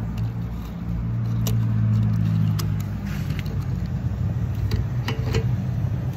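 Low steady hum of a car's engine and road noise, swelling about a second in and easing after about three seconds, with a few light clicks.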